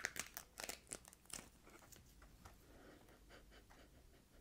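A small plastic sauce sachet being torn open: a quick run of short crackling rips in the first second and a half, then faint crinkling as the packet is handled.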